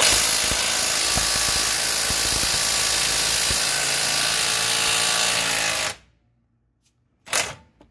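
Cordless power ratchet spinning a 19 mm nut off a lower control arm mounting bolt, a steady whir for about six seconds that cuts off suddenly. A single short metal knock follows near the end.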